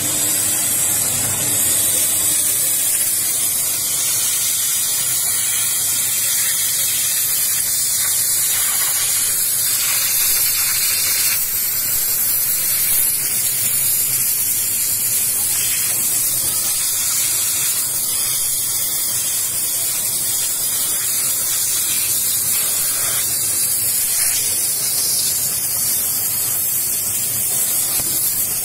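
Scarpavapor No Limits cleaning machine's hand nozzle blowing steam spray in a steady, loud hiss as it is passed over a jacket.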